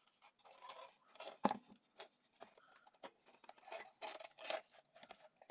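Faint handling sounds of an elastic cord being pulled tight and knotted across two halves of a 3D-printed plastic gauntlet: scattered rubbing and light clicks, with one sharper click about a second and a half in.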